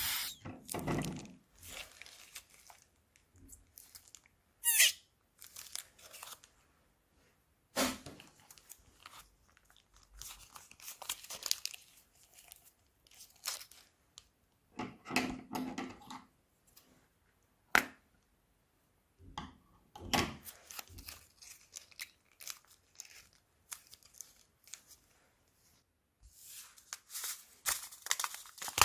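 Hands squeezing and stretching slime: short bursts of sticky crackling and crunching every few seconds, with near-quiet gaps between them. A sharp squeak comes about five seconds in, and a denser crinkling stretch comes near the end.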